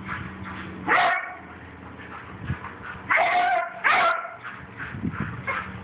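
Beagle barking: a short bark about a second in, then a longer drawn-out bark and another bark close after it around three to four seconds in, with fainter barks near the end.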